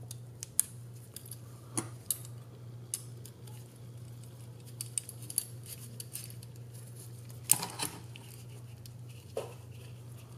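Scattered light clicks and taps of a small screwdriver and carbon-fibre drone frame parts being handled while screws are driven in. The loudest clatter comes about seven and a half seconds in, over a steady low hum.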